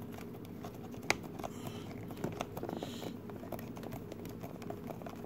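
Screwdriver turning a small screw into a multimeter's plastic back case, with faint scattered clicks and one sharper click about a second in.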